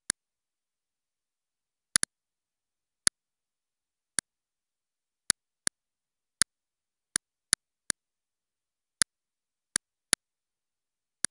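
Computer mouse clicking: about fourteen sharp single clicks at irregular intervals, a few in quick pairs, with dead silence between.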